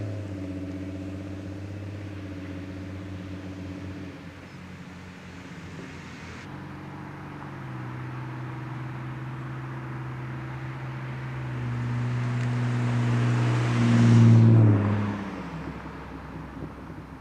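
BMW E46 Touring with its mufflers deleted and replaced by straight stainless pipes, driving past. Its exhaust note dies away over the first few seconds, then builds as the car approaches again, passes loudest about fourteen seconds in with a drop in pitch, and fades away.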